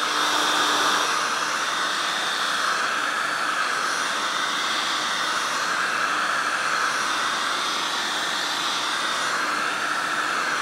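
Hot air gun running steadily, a constant rush of blown air with a faint motor hum, as it heats the hub around a seized wheel bearing to help free it.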